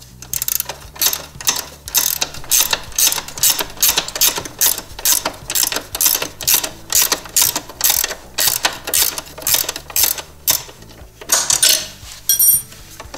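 A 10 mm ratcheting wrench clicking in quick, regular back-and-forth strokes, about two to three a second, as it backs out a bolt on a snowmobile's toe-hold bracket. Near the end a brief metallic ring.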